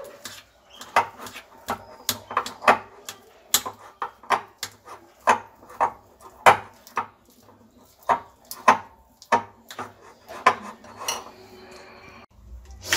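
Spoon clinking and scraping against a glass bowl in quick, irregular strokes, roughly two a second, as solid ghee is beaten until creamy.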